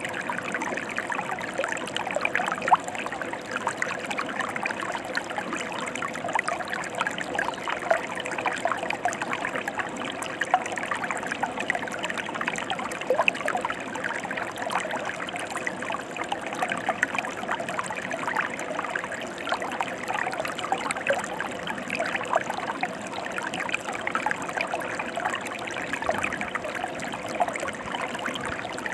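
Stream water flowing steadily, a continuous rush full of small splashes and trickles.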